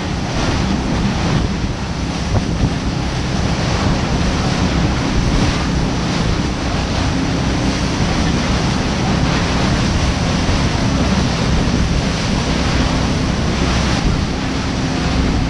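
Wind buffeting the microphone and water rushing and splashing along the hull of a fast-moving motor boat, over a steady low engine drone.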